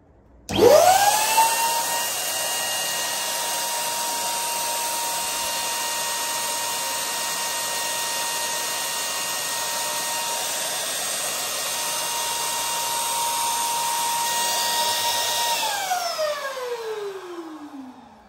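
Electric balloon pump switched on, its motor whining up to speed within about a second, then running steadily as it blows air into a squishy toy. Near the end it is switched off and winds down with a falling whine.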